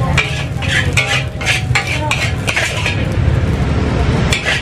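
Metal spatula scraping and clanking against a large steel wok in a quick run of strokes as fried rice is scooped out, over a steady low rumble.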